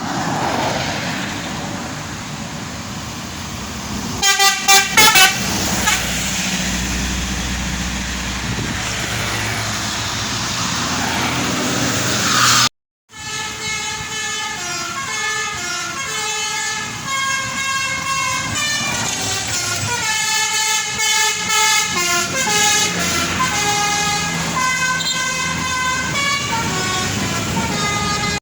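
Tour bus 'telolet' musical air horns: a few quick toots about four seconds in, then, after a break, a long run of horn notes stepping up and down in a tune, over bus engine and road noise.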